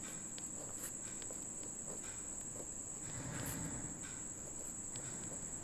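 A pen scratching faintly on paper in short writing strokes, over a steady high-pitched tone.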